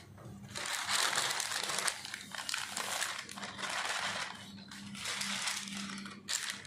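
A paper sheet crinkling and rustling in several stretches as it is lifted and folded to pour sifted flour back into a plastic sieve for another sifting, with a sharp tap near the end. A faint steady low hum runs underneath.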